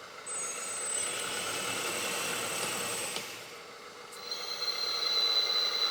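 1/14 scale RC hydraulic bulldozer model running, a steady mechanical whine and hum. It dips about three seconds in, then comes back with a louder, steady high-pitched whine.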